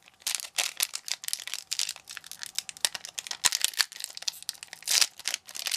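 Foil wrapper of a Pokémon booster pack being crinkled and torn open by hand: a dense run of irregular crackles and rustles.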